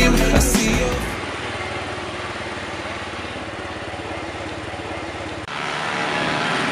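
Music ends about a second in, giving way to a small motor scooter engine running steadily as it rides. About five and a half seconds in, the sound cuts abruptly to brighter street traffic with passing motorcycles.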